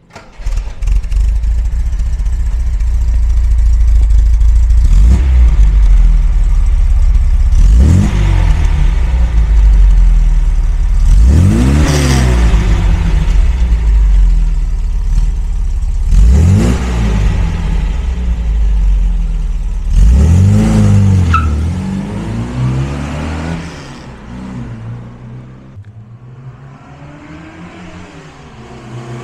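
1973 MGB GT's 1.8-litre straight-four (B-series) running through its original exhaust. It idles with five quick revs spaced about four seconds apart, then grows fainter as the car drives off, and louder again near the end as it comes back.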